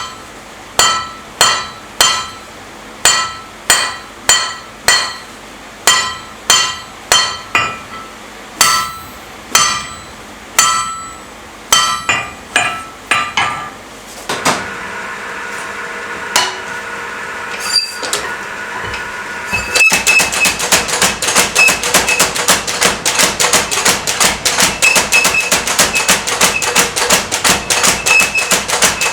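Hammer blows on hot steel at the anvil, about one a second, each with a ringing tone, for roughly the first fourteen seconds. A steadier machine hum follows. About twenty seconds in, a power hammer starts a rapid, continuous run of blows, several a second.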